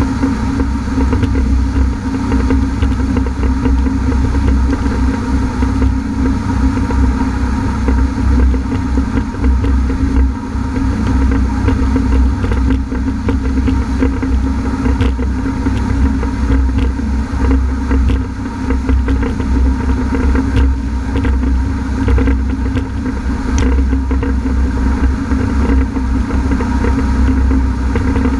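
Honda F-12X AquaTrax personal watercraft's turbocharged engine running steadily under way, with rushing water and wind noise; the newly installed turbo has failed, leaving the ski down on power.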